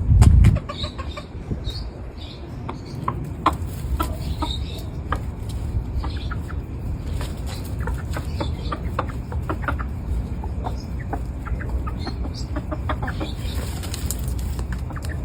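Backyard chickens clucking softly in short, scattered calls, with a loud low thump right at the start.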